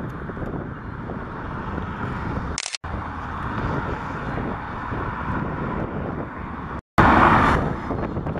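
Diesel freight locomotives, a BNSF unit leading several Norfolk Southern units, running steadily as they pull a train slowly through a rail yard. The sound cuts out completely twice for a moment, and comes back louder after the second break.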